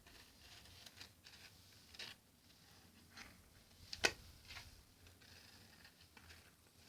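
Faint rustling and soft scraping handling noises with scattered small clicks and one sharp click about four seconds in.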